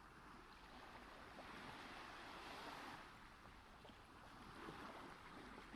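Faint ocean waves washing on a shore, a soft swell that builds and then eases off.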